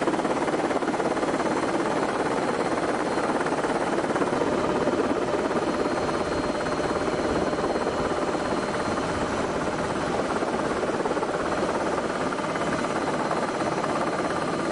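Helicopter noise heard from inside the cabin: a steady engine and rotor rush at constant level, with faint steady whine tones.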